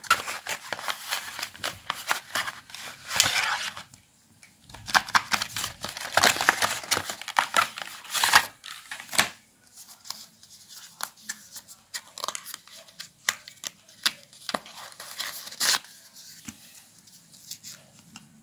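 Cardboard and plastic packaging handled by hand: rustling, crinkling and scraping with many small clicks and taps, busiest in the first half and thinning to scattered clicks later.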